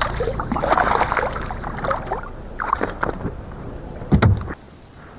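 A hooked bass thrashing and splashing beside a kayak as it is fought to the boat, with irregular knocks and rustling. One hard thump about four seconds in is the loudest sound, and the noise drops off sharply just after it.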